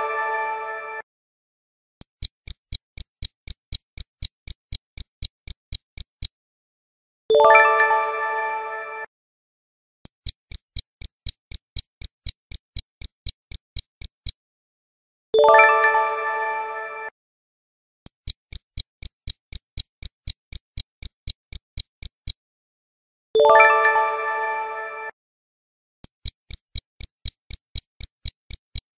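Quiz-timer sound effects: a stopwatch ticking about four times a second in runs of about four seconds, each run ended by a bright chime that rings and fades as the correct answer is shown. The chime sounds four times.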